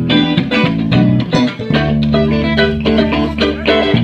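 A band's electric guitar and bass guitar playing through amplifiers with no drums, a run of picked notes followed by a long held low chord from a little before halfway to near the end.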